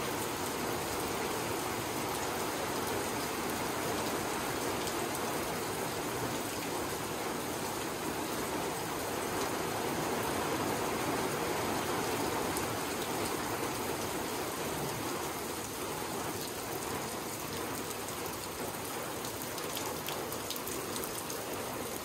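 Steady rain falling on the forest, heard from under a trail shelter's roof.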